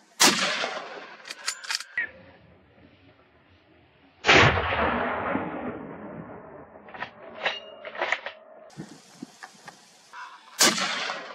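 Three rifle shots: one right at the start, the next about four seconds later and the last about six seconds after that. Each trails off in a long rolling echo, with smaller clicks and knocks between the shots.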